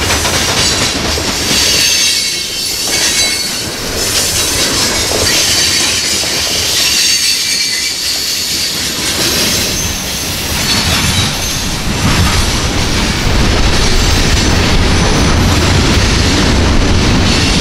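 Loaded coal hopper cars rolling past on steel wheels, clacking over the rail joints, with a high, thin squeal of wheels on the rail. The low rumble grows heavier about two-thirds of the way through.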